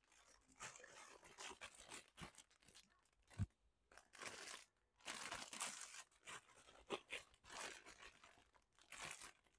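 Clear plastic bags wrapped around model-kit runners crinkling as they are handled, in faint, intermittent rustles, with a small sharp tap about three and a half seconds in.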